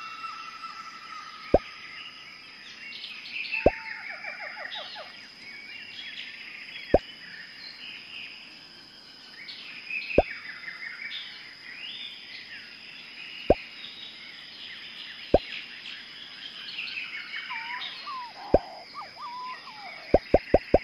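Short pop sound effects, one every two to three seconds, then four in quick succession near the end, over birds chirping and trilling.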